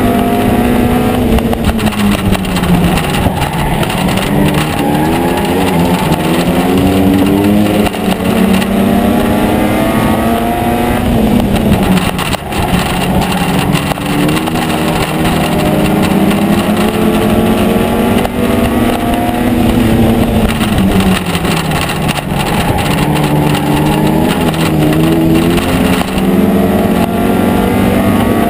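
In-car sound of a Euro Rod race car's engine at racing speed, with wind and road noise. The revs climb slowly along the straights and drop back into the bends, in long swells that repeat several times.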